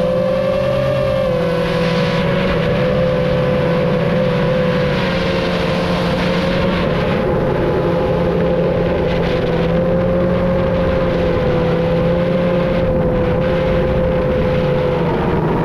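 FPV quadcopter's motors and propellers whining steadily in flight, the pitch wavering a little with throttle, over a rushing wind noise.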